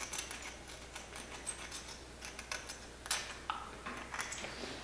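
Hand dental scaler scraping tartar off a dog's canine tooth: a run of short, irregular scratchy clicks as the tartar comes away, the sharpest about three seconds in.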